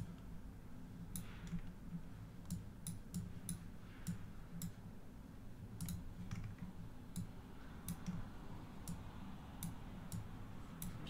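Sharp clicks of a computer mouse at irregular intervals, about twenty in all, over a low steady hum.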